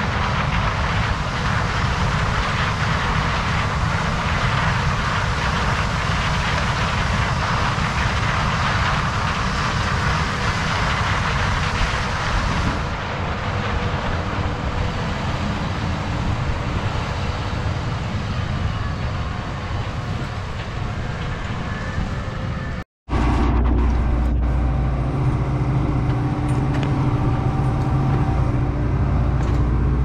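Steady rushing noise in the field while a John Deere S670 combine harvests. After a sudden cut about three-quarters of the way through, the steady low drone of the combine is heard from inside its cab.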